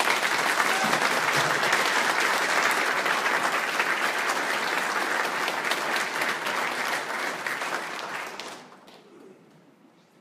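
Audience applauding, a dense loud clapping that dies away after about eight and a half seconds.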